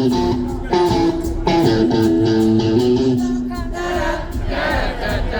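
Live rock band playing, an electric guitar carrying a melodic line of held notes. About four seconds in, a crowd starts singing along.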